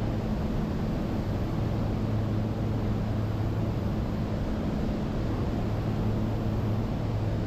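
Steady drone of a Diamond DA62's twin turbo-diesel engines and propellers in cruise flight: an even low hum over a constant rush of air noise, unchanging throughout.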